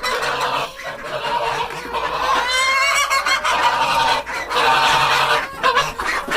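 A flock of chickens clucking and calling loudly, many birds at once with overlapping calls, excited around feeding time.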